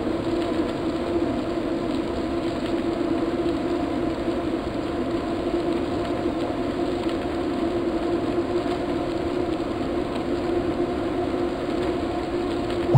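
A steady mechanical hum that holds one constant pitch, with a short low thump at the very end.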